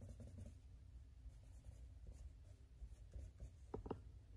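Faint scratching of a coloured pencil being stroked over paper. Two small sharp knocks come close together near the end.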